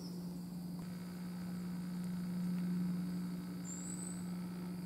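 A steady low hum with a few fainter higher tones, swelling slightly in the middle, and a brief faint high whistle near the end.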